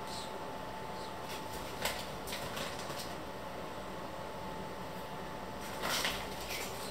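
Steady kitchen background hum with a faint high whine, broken by a few light clicks and knocks about two to three seconds in and a brief louder clatter near the end.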